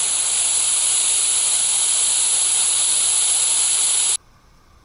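Small electrolysis-fed hydrogen-oxygen (HHO) rocket engine firing with a steady, loud hiss that cuts off suddenly about four seconds in. The engine is burning stably but making only about 6 psi of chamber pressure, too little for supersonic flow from its nozzle.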